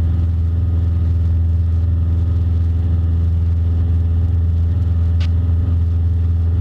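A Cessna 172 Skyhawk's piston engine and propeller droning steadily during the climb after takeoff, with a strong low hum and no change in pitch.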